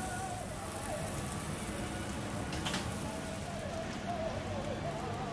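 Beef and chicken burger patties frying in oil on a steel flat-top griddle: a steady sizzle, with one sharp click a few seconds in.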